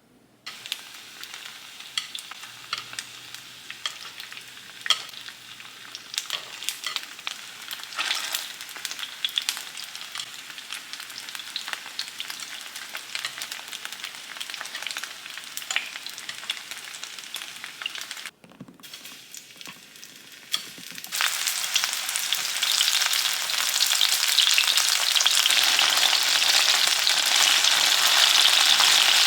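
Food frying in hot oil in a pan, crackling with many sharp pops. It breaks off briefly about 18 seconds in and returns as a louder, denser, steady sizzle from about 21 seconds.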